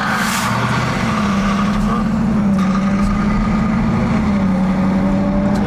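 Dodge Durango SRT Hellcat's supercharged 6.2-litre V8 running steadily under way, a deep growling exhaust note holding a near-constant pitch that dips and rises slightly.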